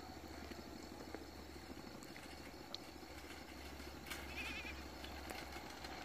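Quiet rural outdoor ambience: a steady low hum and faint hiss, with a few faint ticks and one short, faint wavering call a little over four seconds in.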